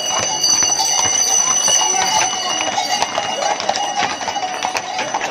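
Bells ringing steadily, fading out about three seconds in, with the clip-clop of horses' hooves on the paved street as the harnessed cart horses pass.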